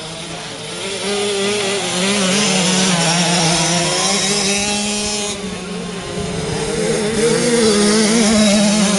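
Small engines of children's mini motocross bikes revving as they ride, the pitch rising and falling with the throttle. It gets louder about a second in, dips briefly around the middle and swells again near the end.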